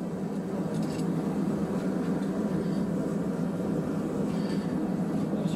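Gas forge burning steadily, a continuous low rushing noise.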